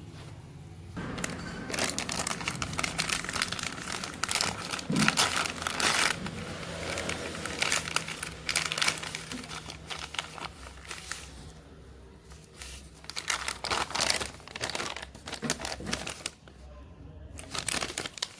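Handling noises: irregular crinkling, scraping and clicking in short clusters, easing off about twelve seconds in and picking up again toward the end, over a faint steady low hum.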